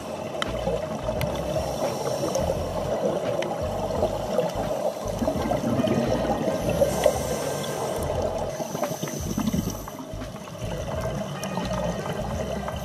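Underwater noise of a scuba diver's bubbles and moving water: a steady, muffled gurgling rumble with a few faint clicks.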